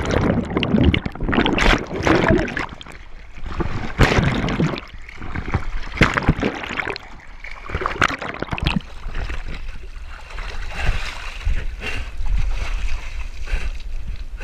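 Water splashing and churning around a GoPro as a swimmer strokes hard through the surface, the camera dipping in and out of the water, in uneven bursts every second or two.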